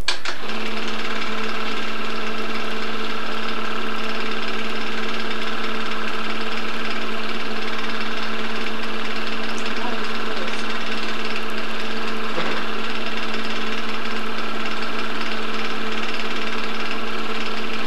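Film projector running, a steady mechanical whir with a constant hum that sets in about half a second in.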